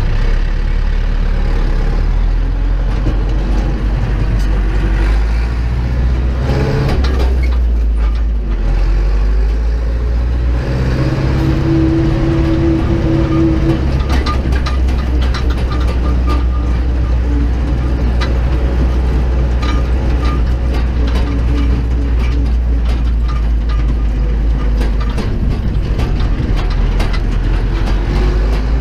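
Zetor 7745 tractor's four-cylinder diesel engine running, heard from inside the cab, with a steady low hum under constant clattering and rattling of the cab and its fittings as the tractor rolls over cobblestones.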